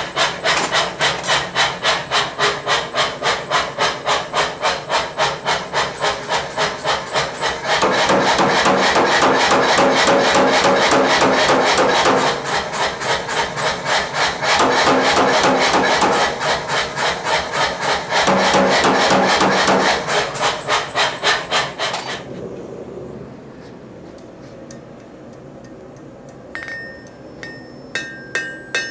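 Power hammer pounding in a fast, steady run of blows, in places so quick they merge into a continuous clatter, as it cuts a hot Damascus steel bar in half; it stops about three-quarters of the way through. Near the end, a hand hammer strikes hot steel on an anvil several times, each blow ringing.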